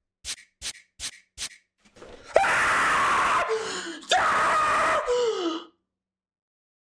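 Four quick clicks, then a man screaming twice, each scream about a second long and loud, sliding down in pitch as it trails off.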